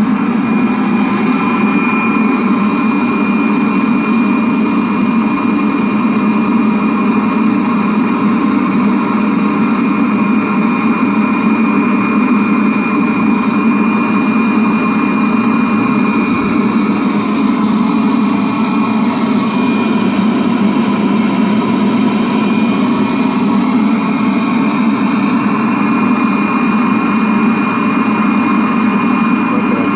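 Webasto fuel-fired heater running steadily: an even burner and blower noise with a thin, high, constant whine over it.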